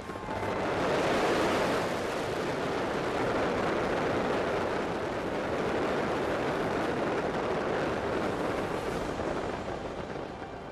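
Continuous roar of a large fireworks display, many bursts blending into one steady rumbling noise with no separate bangs. It swells up within the first second and eases off near the end.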